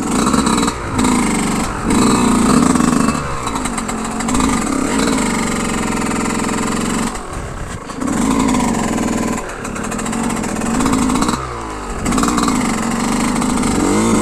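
Yamaha YZ125 two-stroke dirt bike engine being ridden along a soft sandy trail, the throttle opening and closing so the revs climb and drop again and again, with several brief dips in the engine note.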